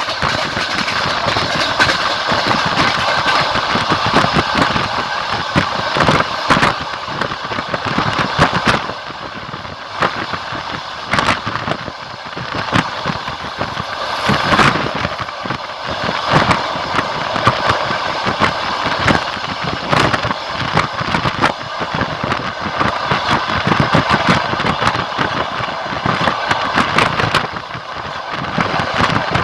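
Wheels of a moving passenger train clattering over the rails, with many short knocks over a steady rushing running noise.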